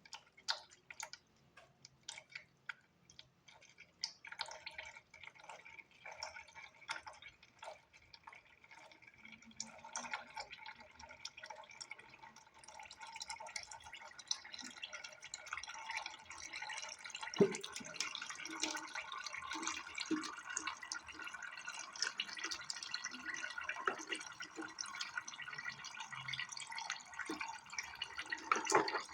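Thin, gasoline-diluted engine oil draining from a Briggs & Stratton single-cylinder crankcase into a pan: scattered drips at first, filling in to a steadier trickle about halfway through, with one sharp knock partway through. The gas in the oil is the sign of fuel getting past worn piston rings.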